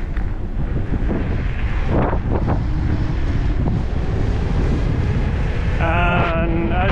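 Wind rushing over an action camera's microphone while riding an electric scooter at speed: a steady rush that builds over about the first second and then holds. A short pitched sound comes near the end.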